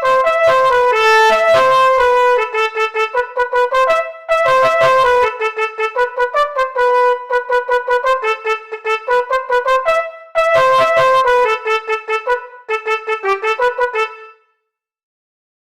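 Telolet bus horn melody programmed in FL Studio: brassy multi-tone horn notes, some held and some in runs of quick repeated stabs, with two short breaks, stopping about fourteen seconds in.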